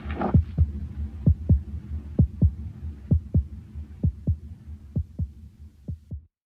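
Heartbeat sound effect in the soundtrack: paired low thumps about once a second over a low hum. It fades and cuts off just after six seconds in.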